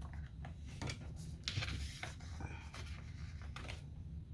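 Light rustling, scraping and clicking from handling small plastic drill packets and storage containers while sorting diamond painting drills, a few short scrapes a second apart over a low steady hum.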